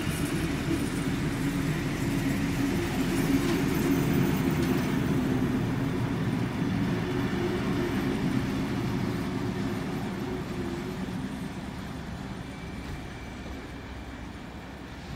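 Heritage passenger carriages rolling past on the rails, a steady low rumble of wheels and bogies that grows louder for the first few seconds and then fades as the end of the train moves away.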